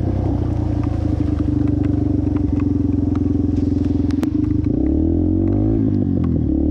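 Yamaha TT-R230's single-cylinder four-stroke engine running at a steady throttle, then revving up and down from about four and a half seconds in as the dirt bike rides through mud. Scattered ticks and one sharp smack come about four seconds in, as mud spray hits the camera.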